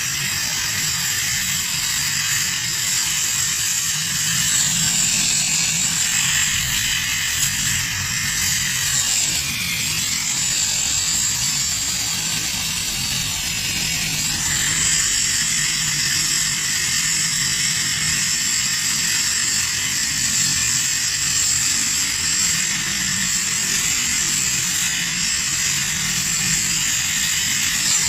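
LPG welding torch flame hissing steadily, with a low hum underneath, as it heats an aluminium engine cylinder block for welding.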